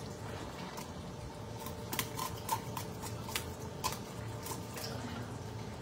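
Irregular small clicks, taps and wet handling sounds of fish being cleaned by hand at a sink, over a faint steady hum.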